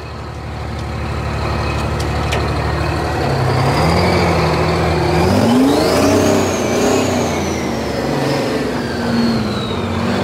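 Twin-turbo two-stroke Detroit Diesel V12 in a John Deere 6030 tractor accelerating. The engine note climbs in steps from about three and a half to five and a half seconds in. A high whine rises to a peak around seven seconds and then slowly falls away.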